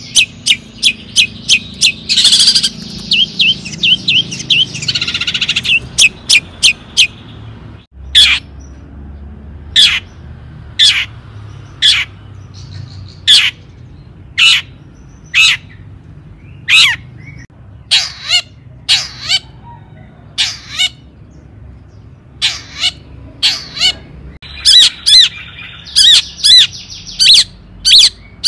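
Long-tailed shrike (cendet) calling: a fast run of sharp, high notes, then, after a brief break about eight seconds in, loud single notes about one a second, turning to a denser, harsher chattering run near the end.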